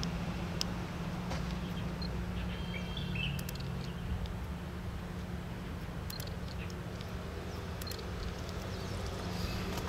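Outdoor yard ambience: a steady low mechanical hum from unseen machinery, with birds chirping briefly about three seconds in and a few faint ticks and chirps later.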